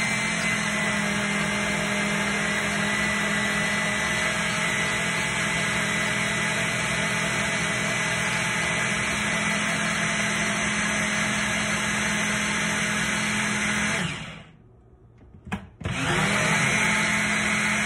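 Personal bullet-style blender motor running steadily, blending fruit and water into a smoothie. It stops about 14 seconds in, there is a short click, and it starts again near the end.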